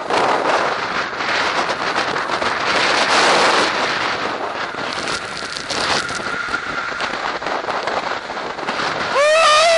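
Storm-force mountain wind, gusting to around 125 km/h, blasting an action camera's microphone with harsh crackling buffets that rise and fall in gusts. A short shout comes near the end.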